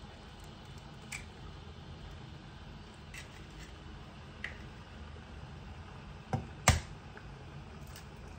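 Eggs being cracked against the rim of a cooking pot: a few light clicks, then two sharp cracks close together about six and a half seconds in, over a low steady hum.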